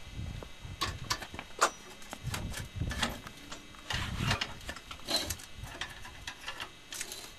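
A trailer tongue jack being cranked with a metal tent stake as the handle: irregular metallic clicks and knocks as the stake turns in the jack, with a few low thumps.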